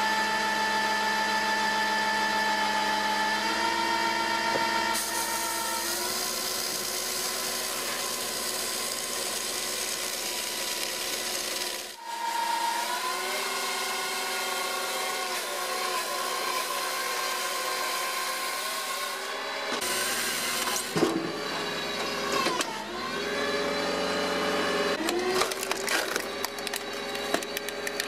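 Homemade firewood processing machine running: its motor hums at a steady pitch that sags and recovers as it takes load while cutting and splitting logs, with sharp knocks and cracks of wood in the last few seconds.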